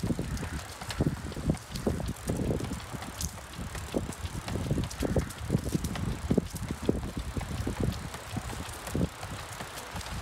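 Road bike rolling along a tarmac path, heard from on the bike as an uneven low rumble with frequent short knocks.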